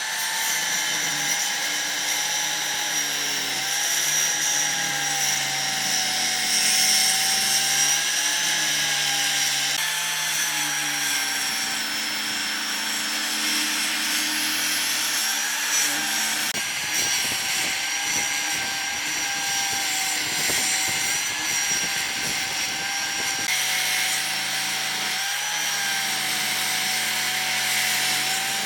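Electric power tool running steadily on wood, its motor whine dipping slightly in pitch now and then as it takes the load.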